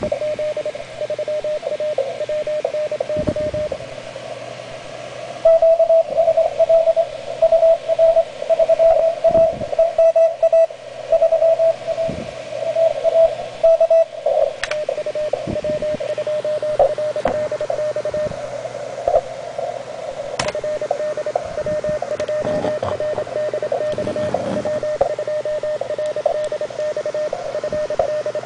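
Morse code (CW) signals from an Elecraft K2 transceiver on the 20-metre band: a single-pitched tone keyed rapidly on and off over steady band hiss. A stronger, slightly higher-pitched signal comes in about five seconds in and keys for several seconds before weaker code carries on.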